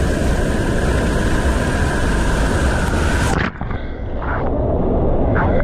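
Loud, steady rush of river water. About three and a half seconds in it cuts off abruptly, leaving a duller, quieter rush.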